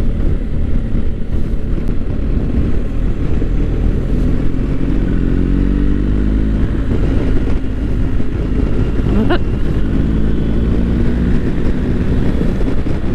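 BMW R1250 GS boxer-twin motorcycle engine running on the move, under heavy wind and road rumble. The engine note climbs and falls as the revs change through the middle. A brief rising squeak comes about nine seconds in.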